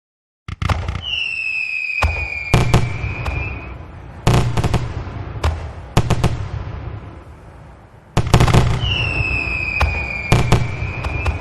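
Fireworks going off: about seven sharp bangs, each trailing off in an echoing tail. Twice, a whistling firework gives a shrill whistle that falls slightly in pitch over two to three seconds, the first about a second in and the second near the end.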